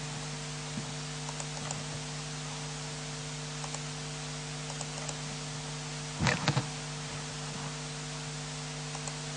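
Steady electrical hum and hiss from a sound system, with a few faint ticks and a brief cluster of knocks and rustling about six seconds in.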